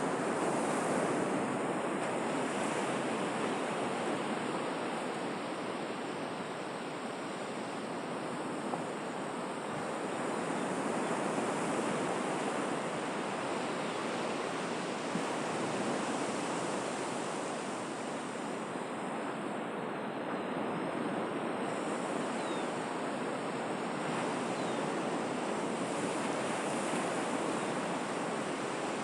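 Sea surf: a continuous rush of waves breaking and washing, swelling and easing gently every few seconds.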